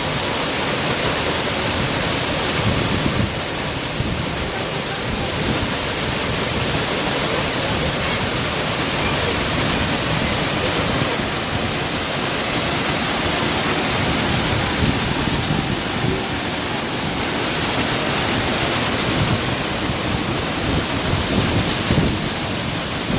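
Urlătoarea mountain waterfall pouring steadily, a loud, even rush of falling water.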